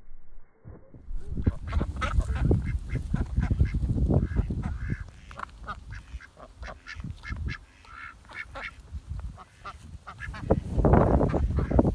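Domestic ducks quacking, many short calls one after another, over a low rumble of wind on the microphone that swells into a louder rush near the end.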